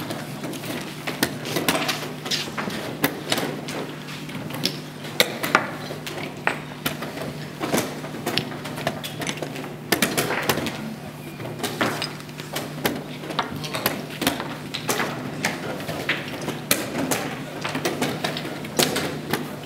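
Chess pieces clacking down on boards and chess clock buttons being pressed, many games at once: irregular clicks and knocks, several a second, over a steady low hum.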